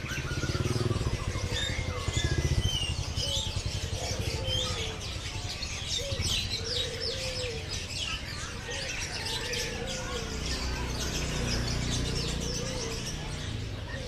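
Many caged songbirds chirping and twittering together at a bird market. A lower call repeats about every second and a half, and a low rumble swells near the start and again about ten seconds in.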